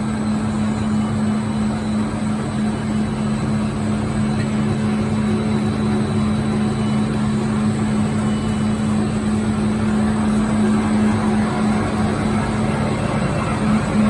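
Erbatech open-width continuous textile washing range running: a steady machine hum with a constant low drone over an even wash of noise.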